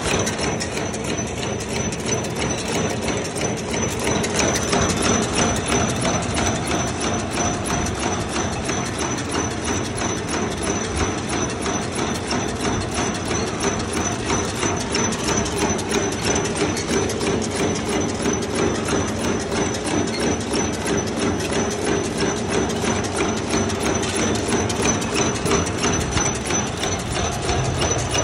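High-speed vertical form-fill-seal sachet packing machine running, with a fast, even mechanical clatter and a steady high whine over it.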